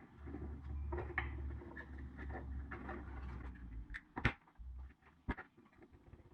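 Handling of a plastic solar garden light: a low rumble of handling with scattered small knocks, then two sharp clicks about four and five seconds in.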